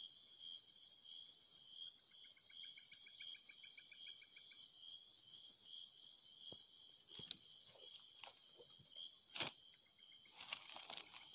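Insects, crickets by the sound, trilling in a steady, high, rapidly pulsing chorus. A second, lower pulsed trill joins from about two to four and a half seconds in, and there is a single sharp click about nine seconds in.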